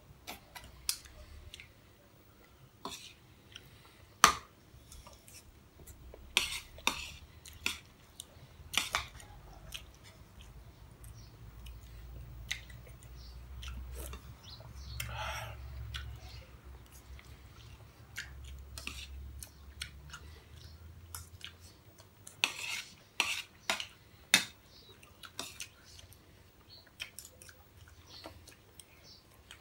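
Metal spoons clinking and scraping against ceramic bowls in irregular, sharp clicks, with chewing between them. A faint low rumble runs under the middle stretch.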